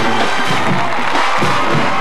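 High school marching band playing as it marches, brass over a steady drum beat.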